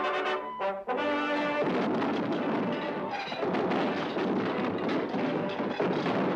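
Orchestral cartoon score with brass: held brass chords for about a second and a half, then a dense, noisy, agitated passage.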